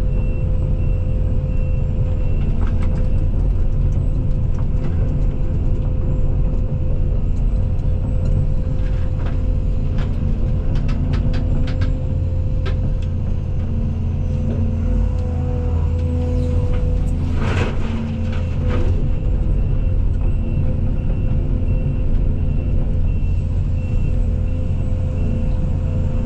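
Case CX220E excavator's diesel engine running steadily under work, with a steady tone over the rumble. Scattered knocks and clatter of wooden and metal barn debris being pushed, with a louder clatter about two-thirds of the way through.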